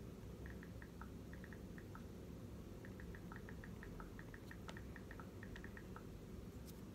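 Faint typing: light clicks in quick runs of several a second, with short pauses between runs, over a low steady room hum.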